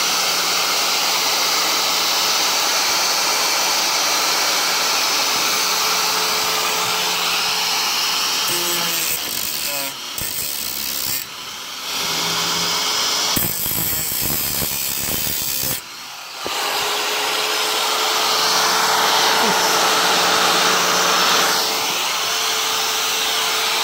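Power tool running steadily as it cuts through a fiberglass-reinforced (FRP) camper roof panel, stopping and restarting briefly a few times midway.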